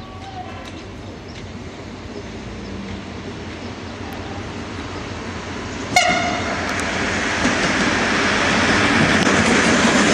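Passenger train pulling into a station: its running noise grows steadily, a brief horn blast sounds about six seconds in, and then the louder rush of the train passing close by holds on.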